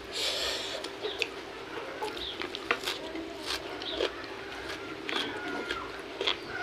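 Close-up eating sounds: fingers gathering rice and raw kenikir leaves, then chewing with wet smacks, many short sharp clicks throughout.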